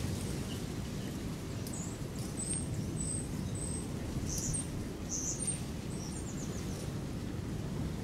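Small birds chirping now and then in short high notes, with a quick run of falling chirps near the end, over a steady low rumble of background noise.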